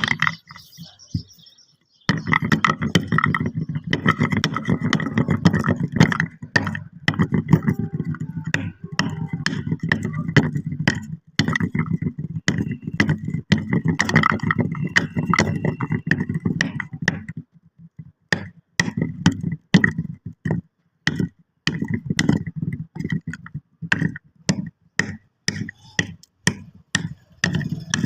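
Kinetic sand being squished: a dense run of fine crackling clicks. About two thirds of the way through it thins into separate bursts of crackles.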